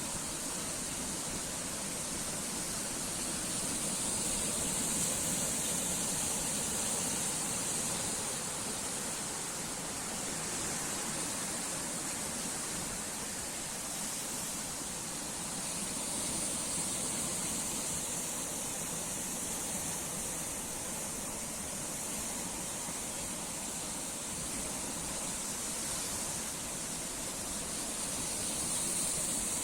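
Sea waves washing ashore in a steady rush of surf, swelling gently about every eleven seconds as each wave breaks.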